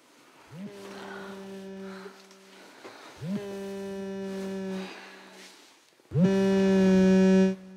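Electronic mobile-phone ringtone sounding three times, each ring swooping up into one steady low note. The third ring is much louder than the first two and cuts off suddenly.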